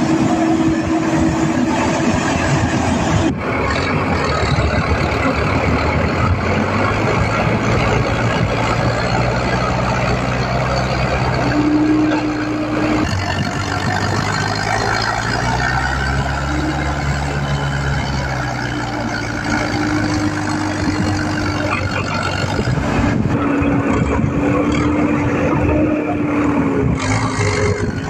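Heavy truck's diesel engine running hard under load as its wheels churn through deep mud; the engine note rises and then falls back about halfway through.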